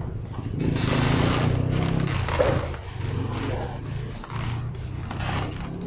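Plastic cling film pulled off a roll and wrapped around a polystyrene food tray, with a burst of crinkling rustle about a second in. A steady engine hum and faint voices run underneath.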